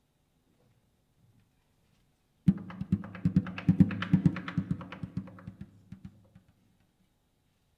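Azerbaijani nagara drum played with bare hands. After a short silence, a sudden fast flurry of strokes starts about two and a half seconds in, then thins out and fades away by about six seconds.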